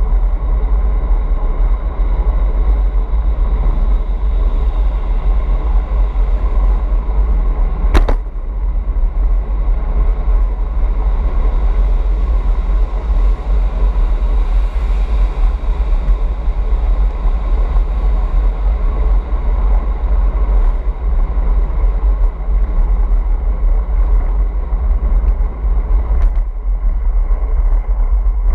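Steady low rumble of riding through a road tunnel, picked up by a handlebar-mounted camera, with one sharp click about eight seconds in.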